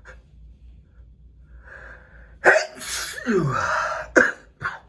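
A man with a head cold sneezes once, hard, about two and a half seconds in. A quick breath in comes first, then a sudden loud burst with a voiced cry falling in pitch and trailing off, followed by two short sharp sounds near the end.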